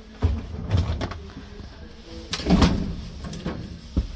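Clunks and knocks of a tiny hotel lift's door being worked, with a loud rattling clatter about two and a half seconds in and a sharp click near the end.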